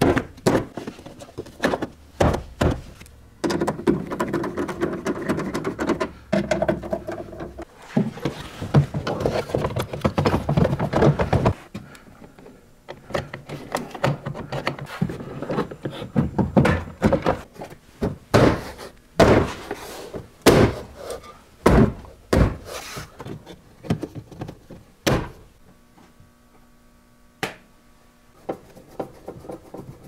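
Plastic interior trim panels of a Toyota FJ Cruiser being pushed and clipped back into place: a string of sharp knocks, thunks and snapping clips. A few seconds in, a steady whir runs for about eight seconds.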